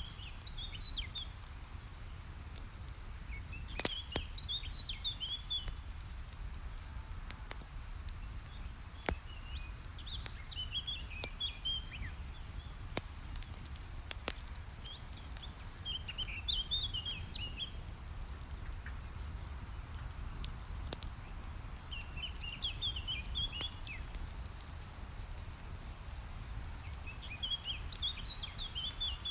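Campfire crackling with scattered sharp pops over a steady low rumble, while a songbird repeats a short twittering phrase about every six seconds.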